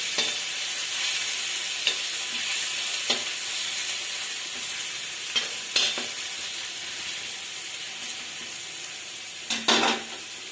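Chopped onion and garlic sizzling in hot oil in a kadhai, with a metal spoon scraping and tapping against the pan now and then as it is stirred; the loudest scrape comes near the end. The onion is frying to brown.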